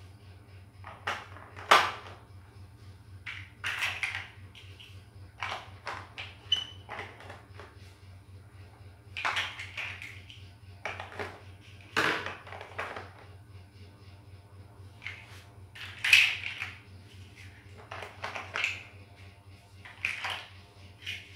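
Plastic toy building bricks clicking and clattering at irregular intervals as they are picked out of a loose pile and pressed together, over a steady low hum.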